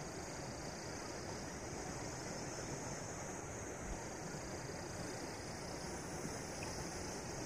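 Rain falling steadily on a tent, an even hiss with no single drops standing out.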